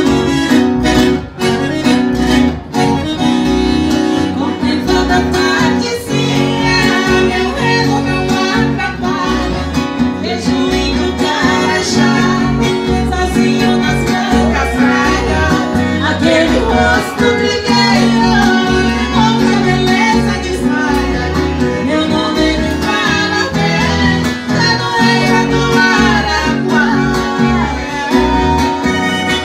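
Sertanejo raiz song played live on piano accordion, acoustic guitar and bass, with a woman singing lead and a man's voice alongside; the singing comes in a few seconds in over the accordion melody.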